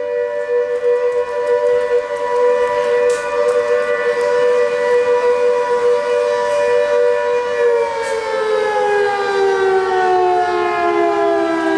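Volunteer fire brigade station siren sounding a call-out for volunteers, holding a steady pitch, then starting to wind down about two-thirds of the way through, its pitch falling.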